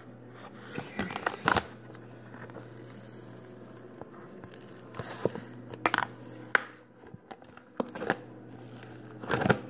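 Blue glitter slime being squished and pulled by hand, giving scattered sticky clicks and crackles, a few at a time.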